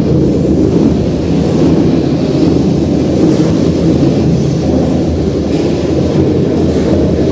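Lamborghini engine sound played loud through the hall's sound system: a deep, steady rumble that holds one pitch with no revving.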